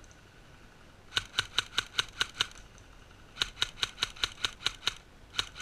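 Airsoft rifle fire: two rapid strings of sharp shots at about five a second, the first starting about a second in and the second after a short pause, with two more shots near the end.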